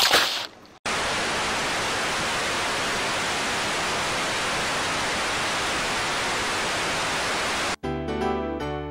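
Steady TV-static hiss, even white noise at a constant level, starting about a second in after a loud noise dies away and a moment of silence. It cuts off suddenly near the end, where electric piano music begins.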